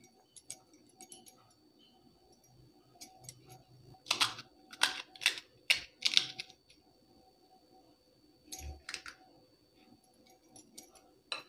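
Crisp fried golgappa shells cracking as they are poked open by hand, with light spoon clicks while potato filling goes in: a cluster of sharp crackles a few seconds in, a couple more near the end.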